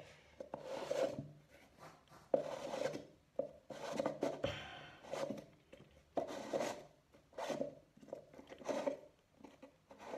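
Plastic McAlpine shower waste trap being screwed up by hand onto the shower tray outlet: a run of short plastic rubbing and scraping strokes, roughly one a second, as the threaded parts turn and tighten.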